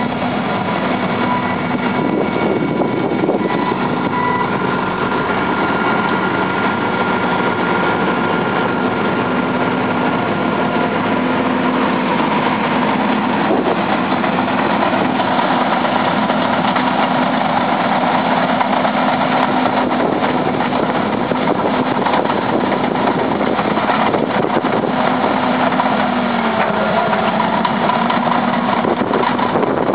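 Heavy diesel engines of landfill machinery, a semi-truck and a tracked bulldozer, running steadily. A reversing alarm beeps about once a second for the first few seconds.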